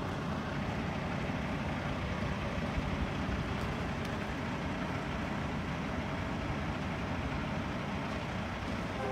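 Semi truck's diesel engine running steadily at low revs as the tractor-trailer backs slowly.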